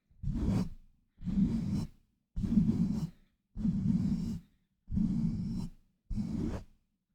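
Hands pumping over a microphone, giving a rhythmic run of heavy, muffled whooshes of air about once every second and a bit, six in all, each cut off to silence.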